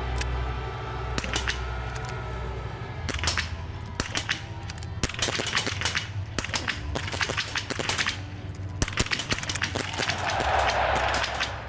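Biathlon .22 rimfire rifles firing prone on the range, many shooters' sharp shots overlapping at irregular intervals, over a steady background din.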